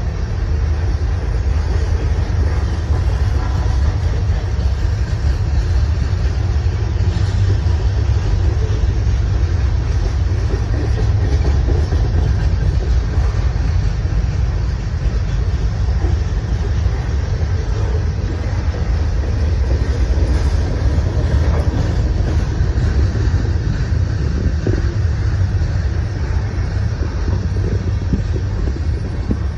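CSX freight train's container flatcars rolling past: a steady, heavy rumble of steel wheels on the rails.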